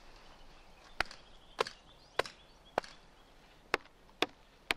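Chopping at an old pine stump to free pine knots: seven sharp wooden strikes, about two a second, with a short pause after the fourth.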